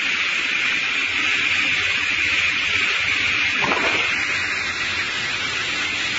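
Multiple blade rip saw running with a steady hiss-like machine noise, with one brief knock a little past halfway.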